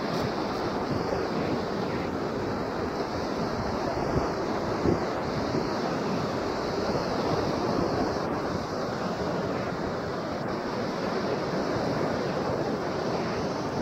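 A steady rush of sea surf breaking on a rocky shore, mixed with wind blowing on the microphone.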